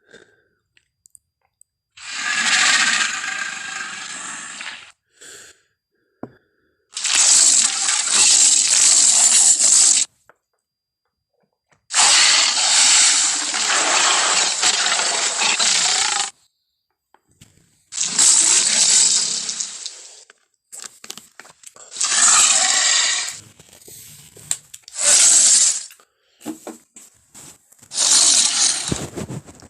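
Film sound-effect Tyrannosaurus rex calls played one after another: about seven separate rasping roars and bellows, each lasting one to four seconds, with dead silence between them.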